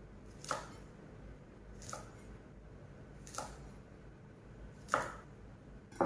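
Kitchen knife chopping green beans on a wooden cutting board: four separate chops about a second and a half apart, the last the loudest.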